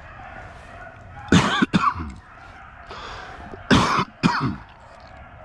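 A man coughing: two loud double coughs, about a second and a half in and again about four seconds in.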